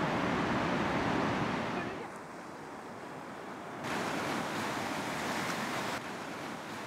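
Ocean surf breaking and washing into the shallows, an even rushing noise that drops for a couple of seconds and then comes back.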